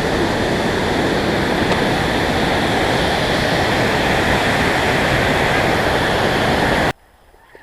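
Loud, steady rush of fast mountain water, a river or waterfall in full flow, as an even noise that cuts off suddenly near the end.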